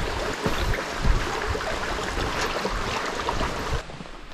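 Steady rush of a mountain stream, with scattered low thuds of footsteps on the bridge; the water sound drops away abruptly near the end.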